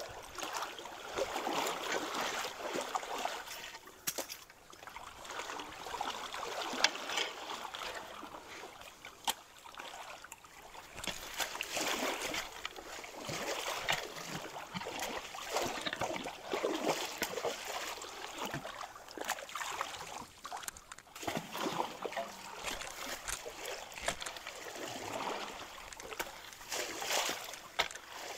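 Creek water splashing and sloshing around people wading and working at a log and brush clog with long-handled tools, over the steady rush of the stream. The splashes come in irregular surges, with an occasional sharp knock.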